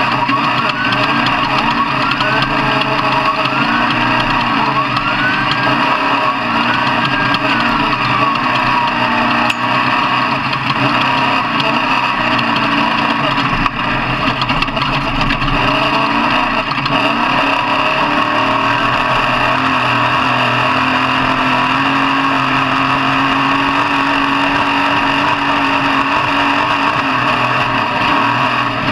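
Loud engine noise of off-road vehicles: an engine revs in about six quick rising bursts, then holds one longer rev that falls away about nine seconds in, over a steady din of running engines.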